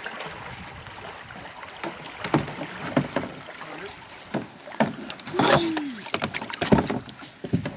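Plastic kayaks knocking and clattering irregularly as they are handled, after a couple of seconds of steady background noise. A short falling voice sound comes about five and a half seconds in.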